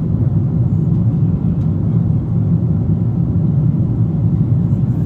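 Steady low rumble of an airliner's cabin in flight: engine and airflow noise heard from inside the passenger cabin.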